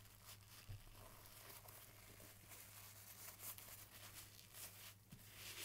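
Near silence: faint rustling of a paper towel rubbed over a steel plane part to wipe off loosened rust after a soak in rust-removal solution, over a low steady hum.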